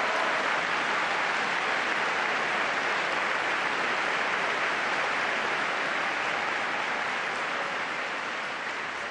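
Large crowd applauding, a dense steady clatter of many hands that slowly fades near the end.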